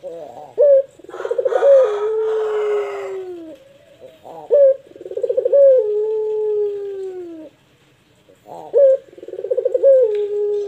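Barbary dove (puter) cooing three times in the long-drawn 'pelung' style. Each coo opens with a short note, rolls into a rapid trill, then ends in a long note that slowly falls in pitch over about two seconds.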